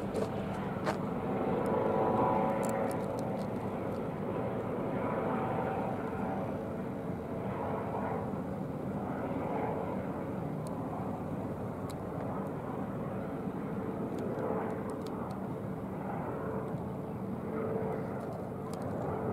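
Twin-engine Airbus helicopter flying overhead: steady engine and rotor noise with a constant whine.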